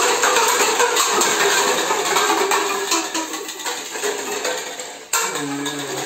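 A tower of plastic cups clattering down as it is blown over: many light plastic knocks as the cups hit the table and each other, over loud, breathy blowing. A second burst of blowing comes about five seconds in.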